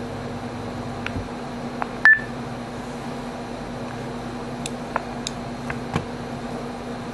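A single short, high electronic beep about two seconds in, over a steady low hum, with a few faint clicks.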